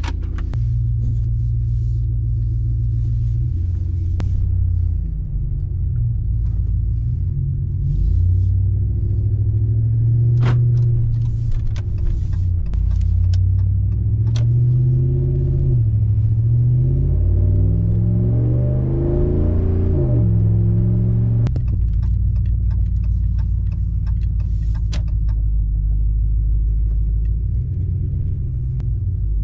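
Car driving with a steady low engine and road rumble. Through the middle the engine pitch climbs several times as the car accelerates. A few faint clicks can be heard over it.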